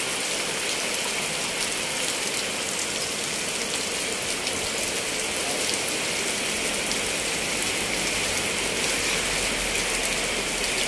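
Heavy rain falling steadily, pattering on a canvas awning overhead and on the wet street.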